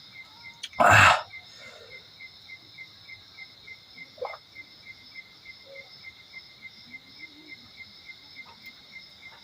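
Insects, crickets by the sound, chirping steadily: a pulsed chirp about four times a second over a continuous high drone. About a second in, a single short, loud burst of noise cuts across it.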